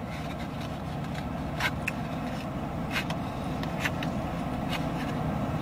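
Steady low rumble of a car idling, heard from inside the cabin, with a few short crackles from a paper food wrapper as a sandwich is handled and bitten into.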